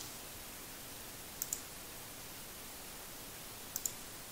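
Computer mouse clicked twice, about a second and a half in and again near the end, each click a quick pair of sharp ticks, over a steady faint hiss.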